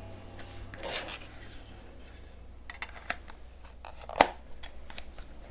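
Handling noise from a Leica M3 camera body being turned over in the hands: faint rubbing and small clicks of fingers and metal, with one sharp click about four seconds in.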